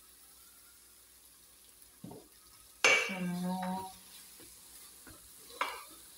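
Wooden spatula stirring onions and meat frying with masala in a metal pot, over a faint sizzle. The spatula knocks against the pot a few times; the loudest knock, about three seconds in, leaves a brief ring.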